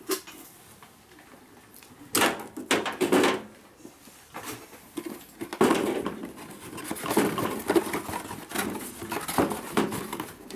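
Cardboard product box being handled on a table: irregular scraping, rustling and light knocks as it is set down and its lid opened.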